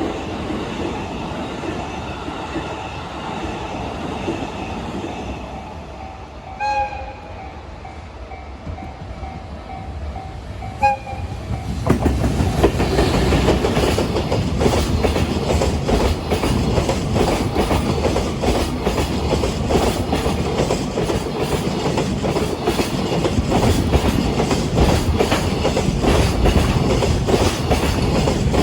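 Level-crossing warning bell ringing steadily. Two short toots of a train horn come about 7 and 11 seconds in. About halfway through, a freight train reaches the crossing and passes close, and its loud rumble and rapid clatter of wheels over the rail joints take over to the end.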